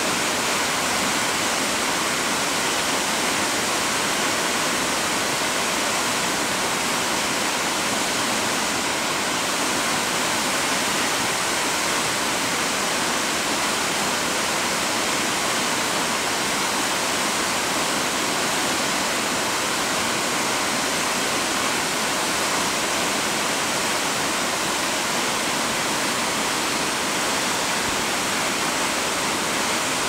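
Waterfall: a steady, unbroken rush of falling water that holds the same level throughout.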